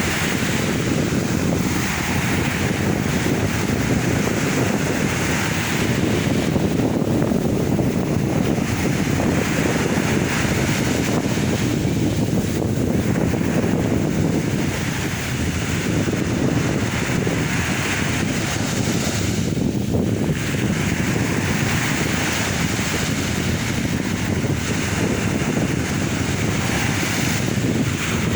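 Sea waves breaking and washing onto the shore one after another every few seconds, over a continuous low rumble of surf.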